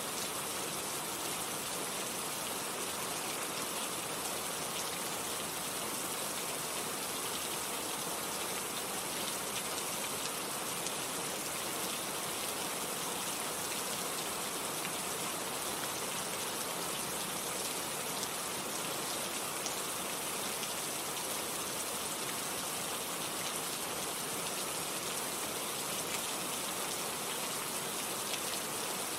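Steady heavy rain falling on foliage, an even hiss with scattered drop patter.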